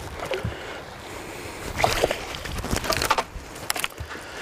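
Lake water slapping against a bass boat's hull, with wind on the microphone and scattered knocks and rattles; the loudest come in a cluster about two seconds in and another about three seconds in.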